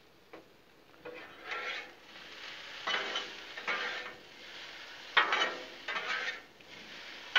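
Metal griddle spatulas scraping across the steel top of a Blackstone flat-top griddle, scooping and turning diced potatoes as they fry, with a light sizzle. After about a second, the scrapes come in several separate strokes.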